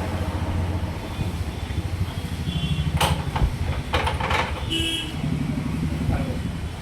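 Lathe machine running with a steady low motor hum, with a few sharp knocks and short high squeals about three to five seconds in.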